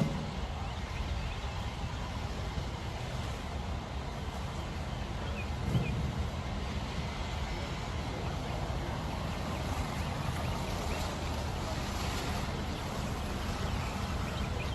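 Steady low rumbling noise with a faint hiss above it, and no distinct events apart from a brief louder bump about six seconds in.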